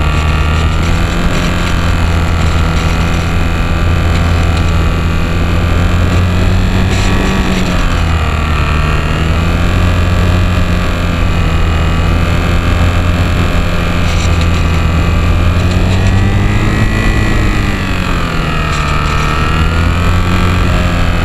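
Onboard recording of a HobbyZone Champ RC airplane in flight: its small electric motor and propeller whine loudly and steadily over wind noise. The pitch dips and comes back up twice, a third of the way in and again near the end.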